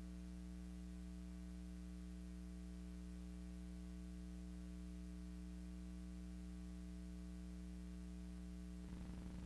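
Steady low electrical hum with several fixed tones, mains hum on a silent film's soundless track, with faint hiss. About nine seconds in, a low fluttering noise joins it.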